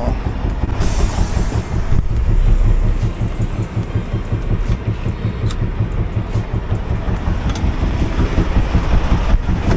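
Semi truck running with a steady, rhythmic thump, thump from under the hood. The owner thinks it has something to do with the air system, or possibly the DEF system. Briefly, about a second in, there is a hiss.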